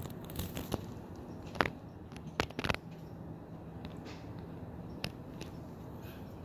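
A few light clicks and scrapes from a dog shifting against a bamboo screen, the sharpest about a second and a half in and around two and a half seconds in, over a steady low hiss.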